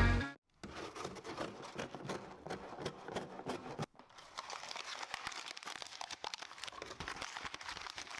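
Packaging crinkling and rustling as it is handled, an irregular crackle of many small clicks with a short break about four seconds in.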